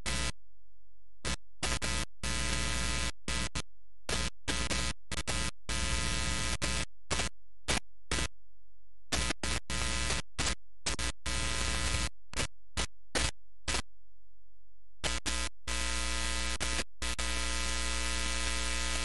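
Steady electrical buzz, a mains hum with many overtones, cutting in and out abruptly over and over, with stretches of dead silence between: a faulty, dropping-out audio feed.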